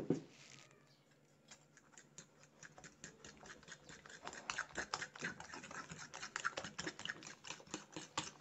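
A glass set down on the table with a knock, then eggs and sugar being beaten by hand in a ceramic bowl: a utensil clicking rapidly against the bowl, getting faster and louder from about four seconds in.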